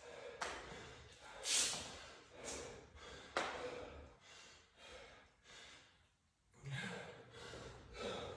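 A man breathing hard in loud, gasping breaths about a second apart, winded after an all-out workout of pull-ups and jump-rope double-unders; the breaths ease briefly about six seconds in.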